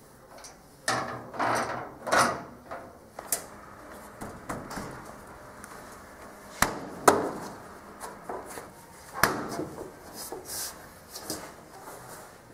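Irregular knocks, taps and scrapes of parts and tools being handled in a workshop. Rubbing and scraping come first, then a few sharp knocks about halfway through.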